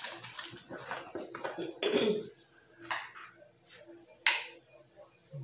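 Small cardboard product boxes and packaging being handled in a carton: a few sharp clicks and knocks, the loudest about four seconds in.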